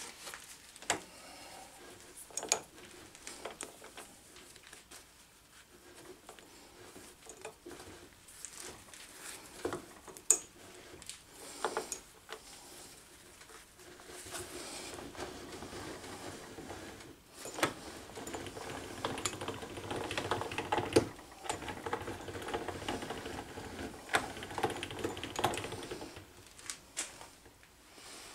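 Atlas 10F lathe carriage cranked along the bed by its handwheel: scattered clicks and knocks at first, then from about halfway a continuous clattering rattle of the gearing and metal rubbing on the ways, broken by a couple of short pauses. Grit is caught under the carriage.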